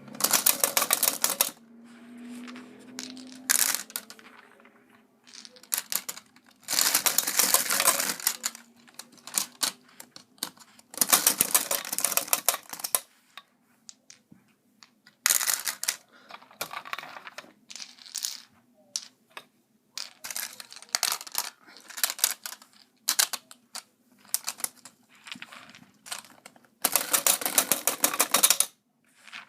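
Lightning Bison B-daman toy launcher rapid-firing marbles fed from a wide magazine: runs of fast clicking a second or two long, with scattered single clicks and rattles in between.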